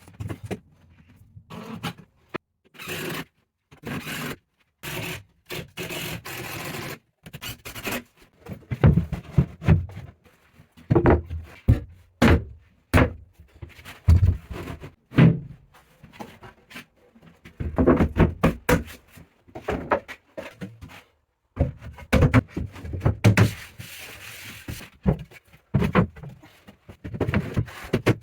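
Plywood carpentry work in short cut-together snatches: knocks and thuds on wood, with scraping and rubbing of tools on boards.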